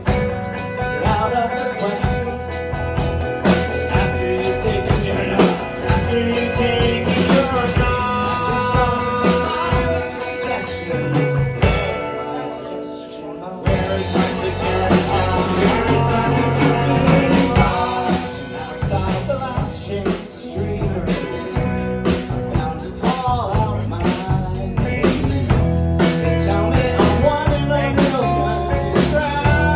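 Rock band playing live, guitar over a drum kit, in a passage without sung lyrics. About halfway through the band thins out and drops in level, then comes back in at full volume.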